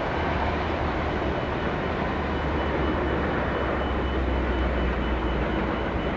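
Coal train running: a steady low diesel drone under a constant rumbling rush, with no horn or sudden sounds.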